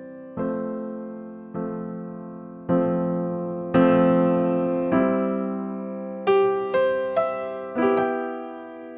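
Slow, gentle solo piano music: a note or chord struck roughly once a second, each left to ring and fade before the next.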